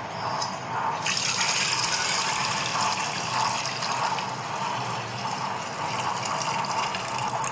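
Thick coconut milk pouring in a steady stream from a steel vessel into a steel pot of wheat milk, the pour growing fuller about a second in.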